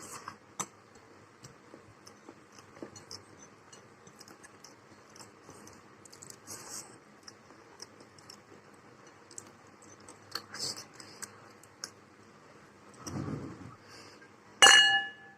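Someone eating: quiet chewing and scattered small clicks of cutlery. Near the end comes one loud ringing clink, like a spoon striking a plate.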